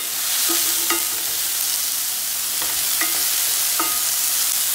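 Diced onions and sliced garlic sizzling in oil in a pan as they are sweated. A wooden spoon stirs and scrapes across the pan bottom, giving about five short squeaky scrapes.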